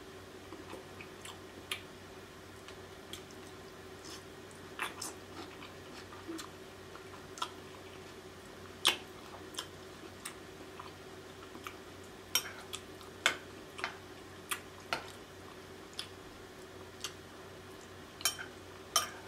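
Close-miked chewing and wet mouth sounds of someone eating sauce-dipped lobster tail meat: irregular short smacks and clicks over a steady low hum.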